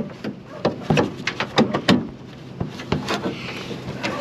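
Irregular knocks, clicks and clunks as the window glass is handled and set back into the car door on the new regulator, about a dozen sharp hits with short gaps between them.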